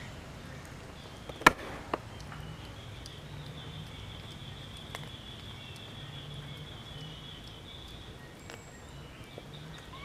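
Outdoor background sound: a sharp knock about one and a half seconds in and a softer one half a second later, then a steady high-pitched buzz for about five seconds over a faint low rumble.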